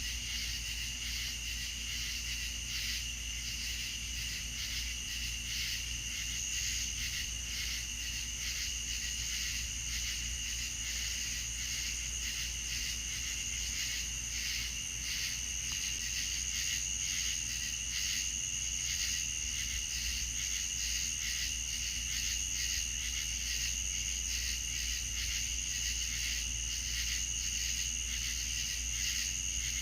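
A night-time insect chorus, with crickets trilling steadily in two overlapping high-pitched layers and a constant low rumble underneath.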